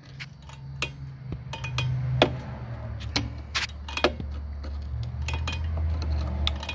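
Screwdriver prying and turning the star-wheel adjuster of a rear drum brake, giving irregular sharp metallic clicks and clinks, the loudest about two seconds in. A steady low hum runs underneath.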